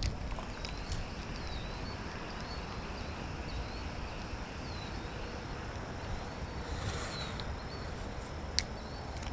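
A small bird chirps over and over with short, quick notes, over a steady rushing background of outdoor noise. A single sharp click comes near the end.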